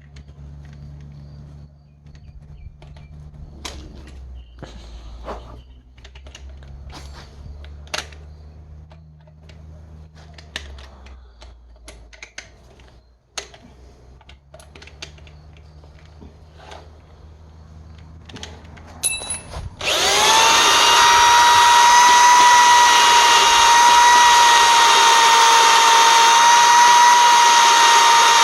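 Scattered light clicks and knocks of handling, then about 20 s in an electric drill starts and runs loud and steady, spinning a diesel engine valve against its seat in the cylinder head to lap it in with valve-lapping compound.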